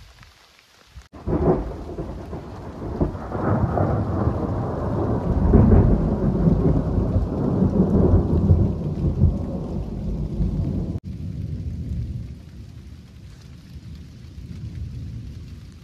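A long low rumble of thunder over rain. It starts abruptly about a second in, is loudest mid-way, and cuts off sharply near the end, leaving a quieter, even rain-like hiss.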